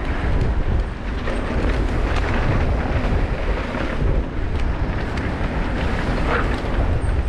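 Wind buffeting the microphone of a camera riding along on a mountain bike, with the tyres running over the trail and small clicks and rattles from the bike.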